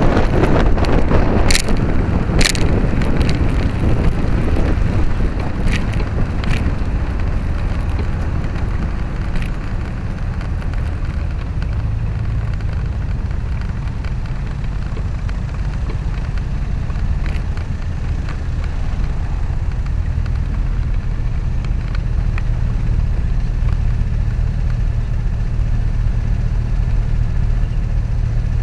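Wind and road noise from a Vespa GTS scooter slowing in traffic, with a few sharp clicks in the first seconds. It eases into the scooter's single-cylinder engine idling steadily from about halfway through, as it stops in a queue.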